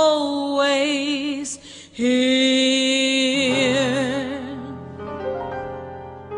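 A slow ballad: a solo voice sings the word "always" as a long held note that swells into vibrato, over sustained accompanying chords that fade away toward the end.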